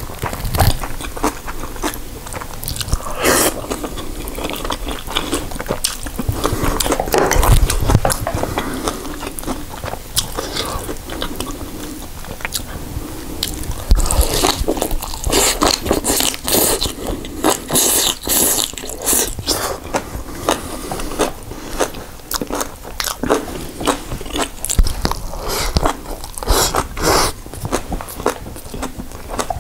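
A person eating spicy kimchi with rice: crunchy biting and chewing, with many irregular crunches and clicks and a louder run of crunching midway through as he takes a big mouthful of green onion kimchi.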